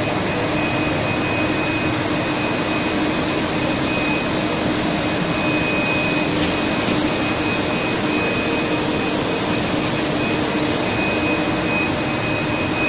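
Steady loud machinery din of a running bottling line: conveyors and filling machines running, with a constant low hum and a thin high whine over the noise.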